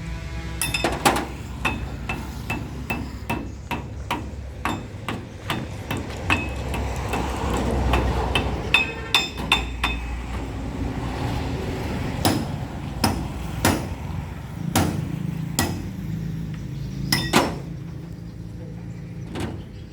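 Hammer blows on metal, an irregular series of sharp strikes, some ringing briefly, over a steady low rumble.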